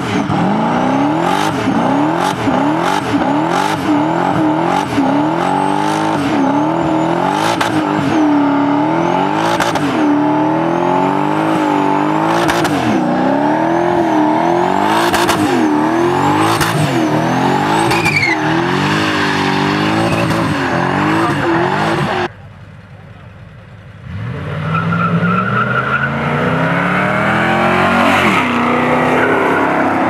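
Pontiac Firebird Trans Am's V8 revving up and down over and over in a long burnout, the rear tyres spinning on the road and a thin whine rising and falling with the revs. About 22 seconds in the sound cuts off. Then another car's engine revs up steadily as it pulls away.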